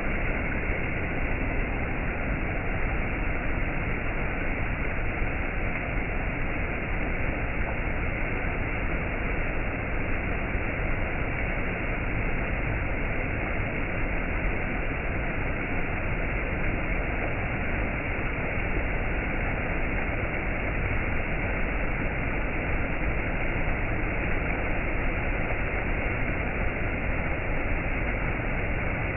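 Waterfall's rushing water as a steady, unchanging roar of noise, dull-sounding with no high treble.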